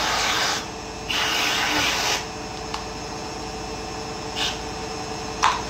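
Aerosol whipped-cream can spraying in hissing spurts: two longer sprays in the first two seconds, then two short squirts near the end.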